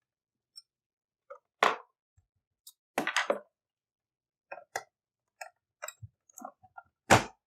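Irregular clicks and knocks of hand tools working at a metal clamp and the console's parts while trying to free it. A sharper knock comes near the end.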